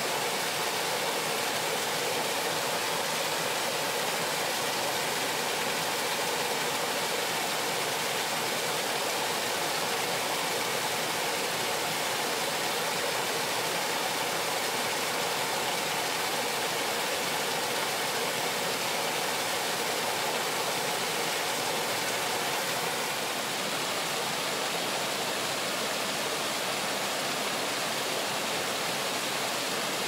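Small waterfall cascading over rocks into a pool: a steady, even rush of falling and splashing water.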